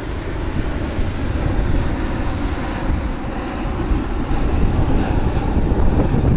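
Jet airliner engine noise: a steady rushing rumble that grows a little louder toward the end.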